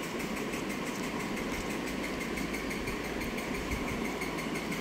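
A small motor running steadily, an even mechanical hum with a faint regular pulse.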